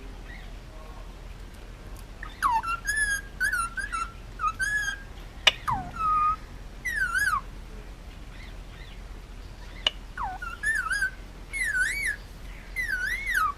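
Male Indian ringneck parakeet whistling: two runs of short, warbling notes that swoop up and down in pitch, with a single sharp click in the middle of the first run.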